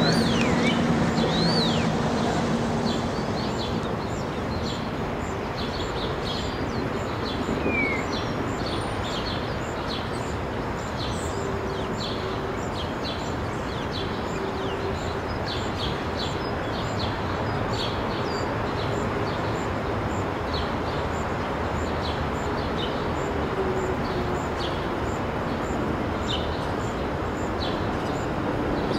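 Steady background noise with birds chirping now and then, in short calls and a few gliding notes. A low hum fades out in the first few seconds.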